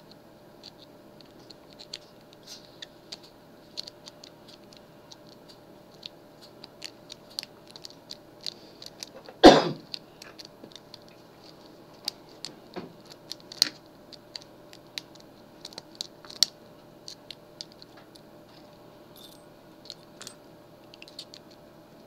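Small metallic clicks and scrapes of a lock pick and tension wrench working a lock, with one louder knock about nine and a half seconds in.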